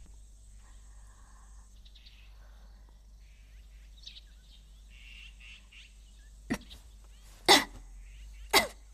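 Birds chirping faintly, then a woman coughing three times in the second half, the last two coughs loud and harsh: a cough from a lingering throat ailment.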